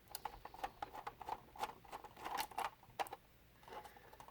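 Faint, irregular small clicks and scrapes of a screwdriver working the screws out of the base of a 1:18 scale diecast model car.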